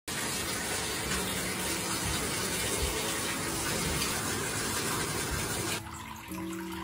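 Water running from a bathtub tap into the tub, a steady rushing hiss that cuts off abruptly near the end. Background music with held notes follows.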